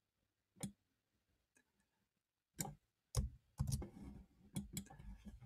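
Computer keyboard and mouse clicks: a single click about half a second in, then a run of keystrokes and clicks from about two and a half seconds on.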